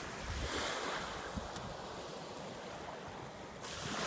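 Surf washing on the shore, with wind buffeting the microphone; the hiss grows louder near the end.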